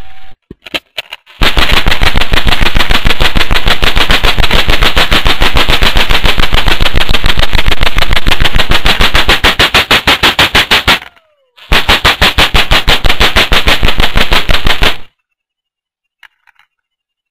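Homemade camera-flash high-voltage stinger firing sparks across a wire spark gap, a rapid, even train of loud snapping cracks, with a few scattered snaps at first. It breaks off briefly about eleven seconds in, starts again, and stops about four seconds later.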